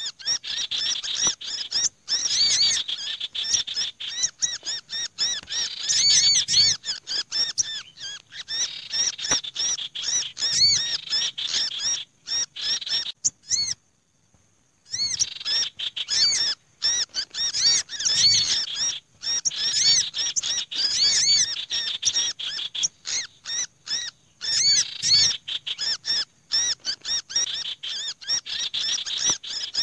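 Bird-lure recording of small songbirds: a busy, unbroken mix of rapid high chirps and harsh chattering, blending a kehicap (black-naped monarch) distress call with noisy sogok ontong and sirtu chatter, made to draw small birds down. It breaks off for about a second near the middle, then starts again.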